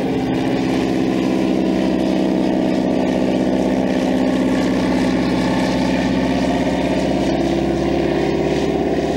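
de Havilland Canada DHC-2 Beaver's single radial engine and propeller droning steadily as it flies a slow, low pass overhead, the pitch rising slightly near the end.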